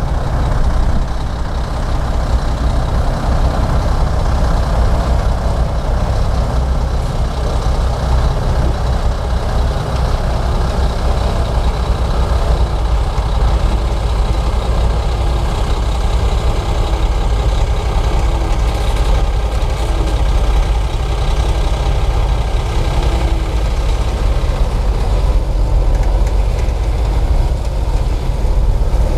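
Komatsu D58P bulldozer's diesel engine running steadily with a deep, continuous rumble.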